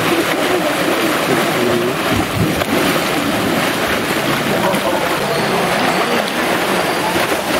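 Pool water churning and splashing steadily as two elephants roll and play in it.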